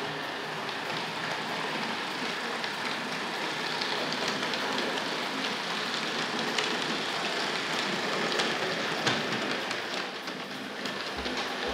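Hornby R.842 LMS Class 5 OO-gauge model locomotive backing a rake of maroon coaches along the track towards the points. Its motor and the wheels on the rails make a steady rushing rattle, with scattered sharp clicks.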